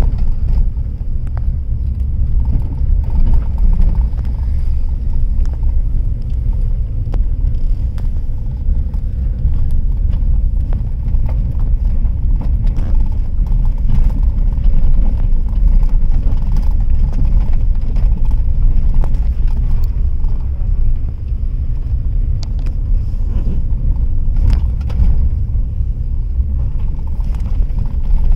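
Steady low rumble of a car driving slowly over a rough gravel road, heard from inside the cabin, with scattered small knocks and rattles from the bumps and stones.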